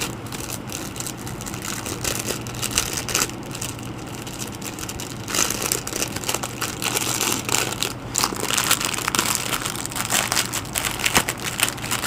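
Plastic packaging crinkling and rustling as it is handled, getting busier and louder about five seconds in.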